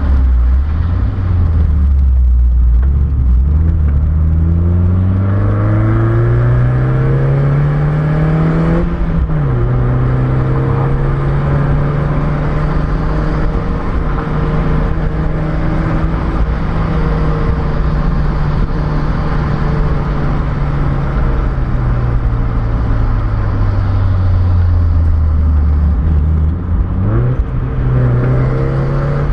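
Mazda MX-5's four-cylinder engine pulling downhill. The revs climb steadily for several seconds, then drop sharply at an upshift about nine seconds in. They hold, sag slowly for a while, and rise quickly again near the end as a lower gear is taken.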